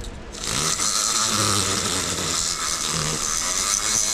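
Rotary tool spinning a sanding cartridge roll against the exhaust port of a two-stroke chainsaw cylinder, polishing the port: a steady high grinding hiss with a thin motor whine that starts about half a second in.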